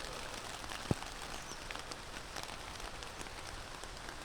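Heavy rain falling, a steady hiss dotted with the ticks of single drops, with one sharper tick about a second in.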